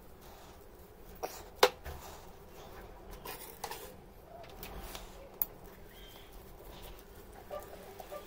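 Screwdriver turning a screw set in a steel hammer head: faint scraping with a few sharp metal clicks, the loudest about a second and a half in.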